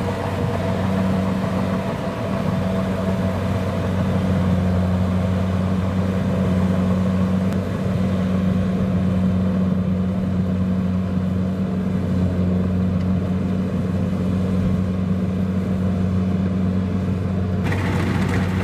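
Kubota DC-70 Plus rice combine harvester's diesel engine running steadily with a low, even hum.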